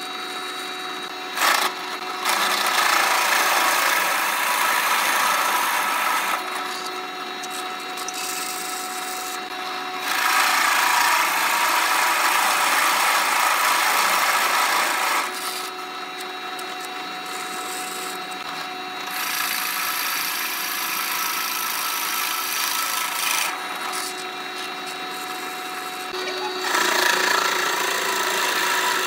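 Drill press motor running steadily while a Forstner bit bores into a solid wooden block in four stretches of a few seconds each, the cutting louder than the motor alone. A short click about a second and a half in.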